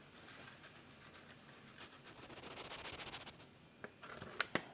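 Faint rustling and fine pattering of a packet of beef stew seasoning mix being shaken out over the food, with a few light clicks near the end.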